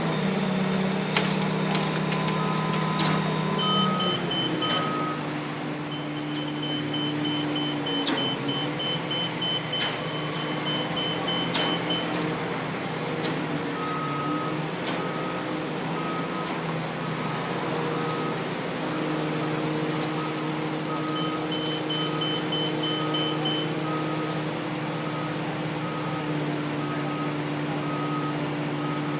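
Heavy crane engine running steadily, its pitch shifting as the crane works. Over it come repeated electronic warning beeps: a higher rapid series on and off, and a lower one sounding about twice a second through the second half. A few sharp knocks sound near the start.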